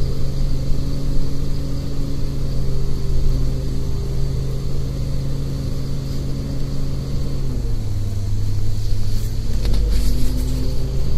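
City bus engine droning steadily inside the passenger cabin as the bus drives; its note drops to a lower pitch about two-thirds of the way through. A few short clicks or rattles come near the end.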